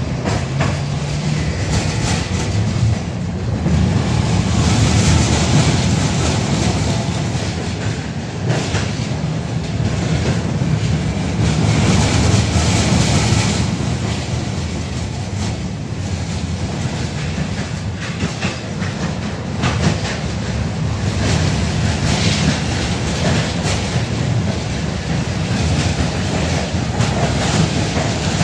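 Interior running noise of a 71-605A (KTM-5) tram car under way: a steady low rumble of motors and wheels on the rails, with occasional clacks from the wheels passing over the track.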